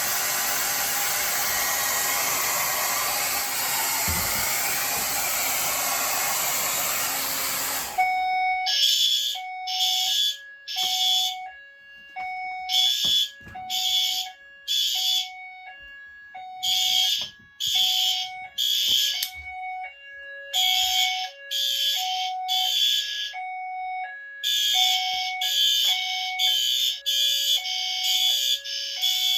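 Hair dryer blowing hot air onto an FST-851R heat detector until it trips. About eight seconds in, the dryer stops and the fire alarm horns sound in the temporal-three evacuation pattern: three blasts, a pause, repeating. Underneath runs a lower tone that alternates steadily between two notes.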